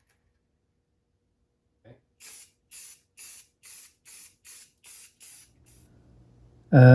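Aerosol can of spray primer sprayed in about eight short bursts, roughly two a second, each a brief hiss.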